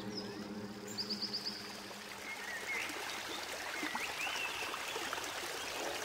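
Steady hiss of street and crowd noise around a gathering of cyclists, with a quick run of short high ticks about a second in and a few faint chirps in the middle.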